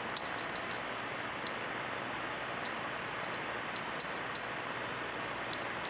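Glass furin (Japanese wind bell) tinkling as its clapper strikes the rim irregularly, often several times a second in little clusters. Each strike is a bright, high ping that rings briefly and fades.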